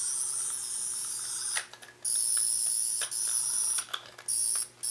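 Toy sonic screwdriver (9th/10th Doctor replica) sounding its high-pitched electronic buzz in several bursts, each started and stopped with a click of its button.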